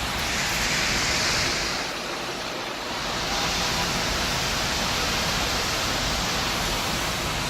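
Loud, steady wash of city noise heard from a 23rd floor: distant traffic and construction noise blended into an even hiss, swelling slightly about a second in.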